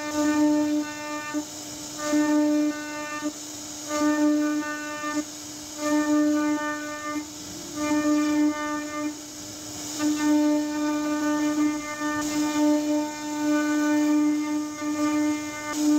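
CNC router spindle whining at one steady pitch as its carving bit cuts a relief pattern into a wooden door panel. The whine turns fuller and louder in repeated stretches of about a second, easing between them, over a faint hiss of cutting.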